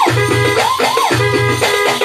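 Arranger keyboard playing a horn-voice melody over its own rhythm accompaniment, with a regular bass pulse and a percussion beat. The lead swoops up and down in pitch twice in quick succession near the middle.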